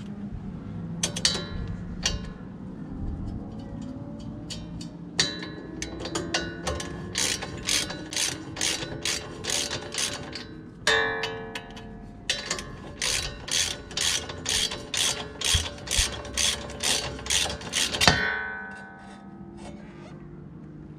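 Hand ratchet working the nut on a front sway bar link: fast clicking strokes at about two a second, with two short metallic rings partway through and near the end.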